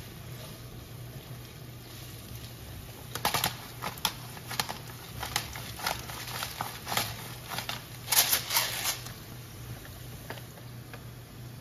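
Pepper grinder twisted over a frying pan: an irregular run of dry crunching clicks for about six seconds in the middle, over a steady low hum.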